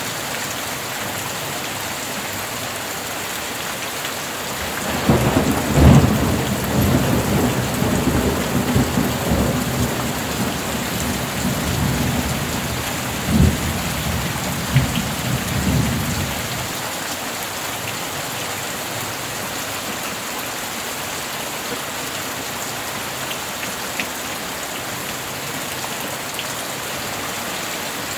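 Steady rain with a roll of thunder about five seconds in. The thunder rumbles for about ten seconds, with two sharper cracks, then dies away and leaves the rain alone.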